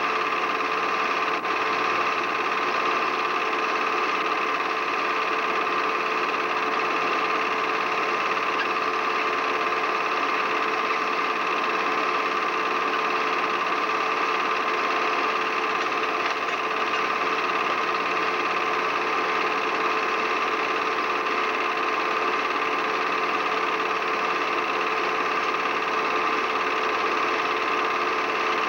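A steady mechanical whirring hum with constant tones, unchanging throughout; no band music or crowd can be made out.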